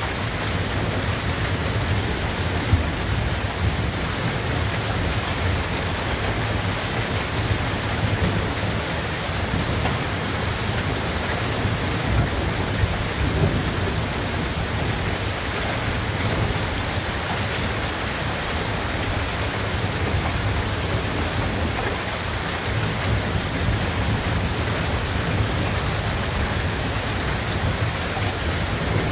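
Heavy rain falling steadily, with a continuous low rumble of thunder underneath. A few sharper drop impacts stand out, one about three seconds in and a couple around thirteen seconds.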